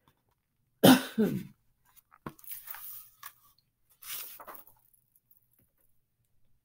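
A short cough about a second in, followed by a click and soft paper rustling as a picture book is handled and lowered.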